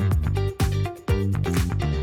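Background electronic dance music with a steady beat, about two bass kicks a second.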